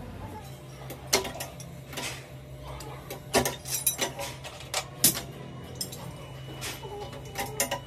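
Metal parts being handled in a workshop, clinking and tapping at irregular intervals over a steady low machine hum.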